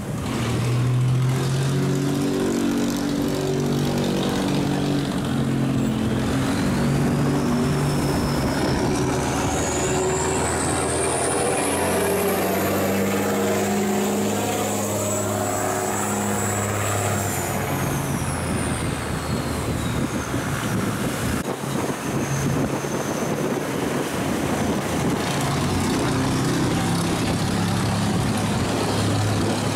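Engine of a river barge running steadily, a layered low drone that shifts in pitch, with a faint high whine that rises and then falls away in the middle.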